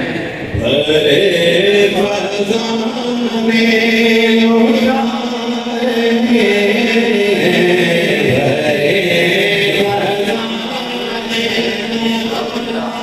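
A man reciting a devotional Urdu naat into a handheld microphone, chanting in a melodic line with a long held note in the middle.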